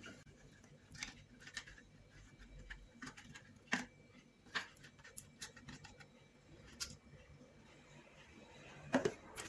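Wooden spoon scraping and tapping against an aluminium tube mould while caramel is spread up its sides: faint, scattered light clicks, the sharpest about four seconds in and a close pair near the end.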